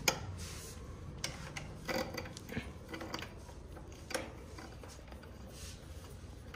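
Scattered clicks and light knocks with some rubbing, made by small parts and hand tools being handled; the sharpest click comes right at the start.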